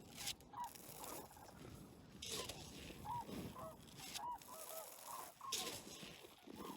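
A flock of cranes calling, with many short honking calls overlapping and repeating, and a few brief bursts of hiss.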